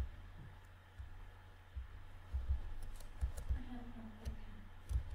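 A few sharp computer mouse clicks over a steady low electrical hum. About three and a half seconds in, a voice gives a faint, brief hum.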